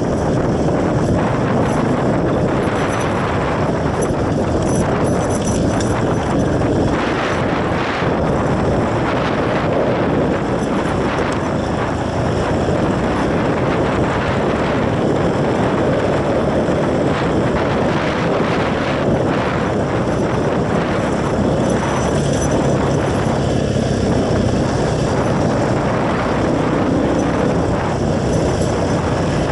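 Motorcycle engine running steadily under heavy wind noise on the microphone.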